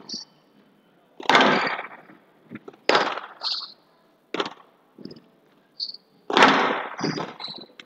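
A squash rally: hard, echoing cracks of racket on ball and ball on the court walls, about one every second and a half, with short high squeaks from the players' shoes on the court floor between the shots.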